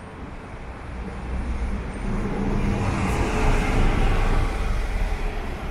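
Road traffic running past on a city street, its noise swelling to a peak about three to four seconds in and then easing off.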